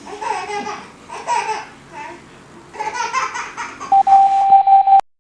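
A baby laughing in several short bursts, followed by a loud steady electronic tone that lasts about a second and stops abruptly.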